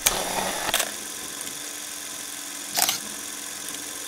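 Sound effects for an animated title: a steady hiss with sharp clicks, one at the start, another just under a second in, and a third near three seconds.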